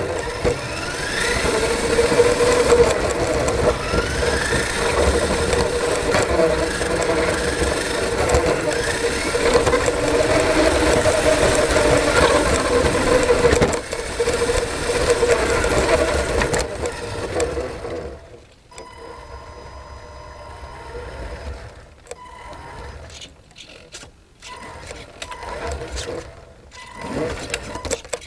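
Radio-controlled car's motor and drivetrain running from on board, its whine rising and falling repeatedly with the throttle. About two-thirds of the way in it goes much quieter and stop-start.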